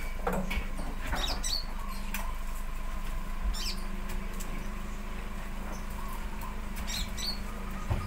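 Oil palm fruit bunches being speared with a spiked pole and thrown from a pickup bed into a truck: scattered knocks and rustles over a steady low hum.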